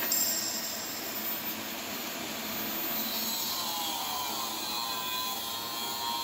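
Pulsed TIG welding arc on 316L stainless-steel pipe, a steady rasping hiss while filler rod is fed into the joint.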